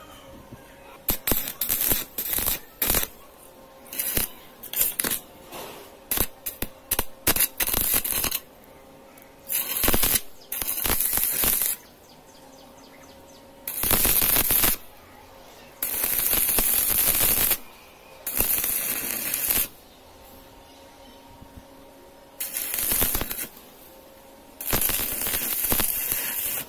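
Stick (arc) welding: the electrode arc crackling and sizzling. Many quick sputtering strikes through the first eight seconds as the rod is struck, then about six runs of steady crackle, each one to two seconds long, with short pauses between.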